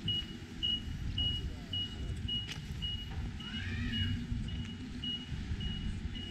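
A high electronic beeper sounding short, even beeps about twice a second, over an uneven low rumbling noise, with a brief rising-and-falling chirp about four seconds in.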